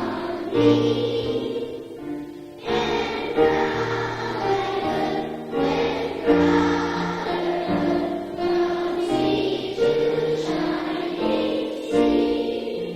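A group of children singing a song together, in long held notes and phrases.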